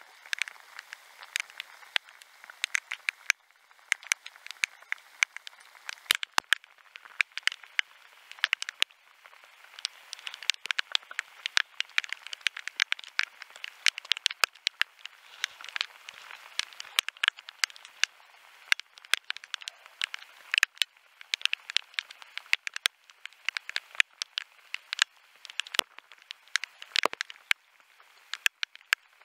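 Rain: a dense, irregular patter of sharp ticks as raindrops strike the camera housing close up, over a steady hiss of rain on the river.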